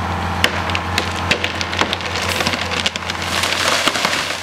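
Poplar tree falling: the trunk's wood snaps and splinters in a run of sharp cracks that come faster and faster, building to a dense crash of breaking branches in the second half as the crown comes down.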